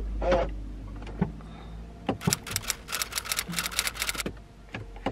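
A car failing to start: a rapid run of clicks, about eight a second, starts about two seconds in and lasts about two seconds, with a few single clicks around it, over a low steady hum.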